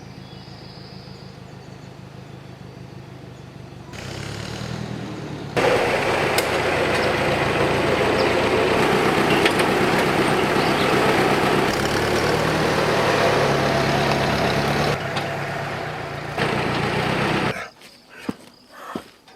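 An engine running steadily, joined about five and a half seconds in by a louder, rougher noise that drops away near the end; the sound changes abruptly several times, as at cuts between shots.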